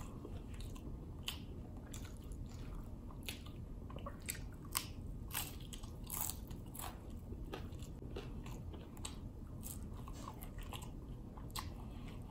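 A person biting and chewing a Fiery Doritos Locos hard-shell taco, the shell giving short, sharp crunches at irregular intervals, roughly one or two a second.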